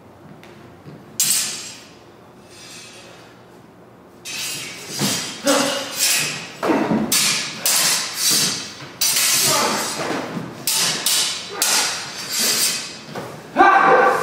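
Steel stage-combat rapier and dagger blades clashing and scraping: one hit about a second in, then a fast run of ringing strikes from about four seconds in. A louder burst comes near the end.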